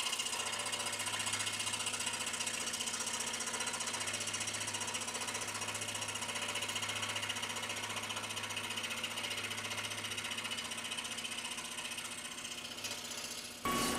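Scroll saw running, its fine blade cutting out the interior slots of a thin basswood piece: a steady buzz with a low hum and a high whine, which changes briefly near the end.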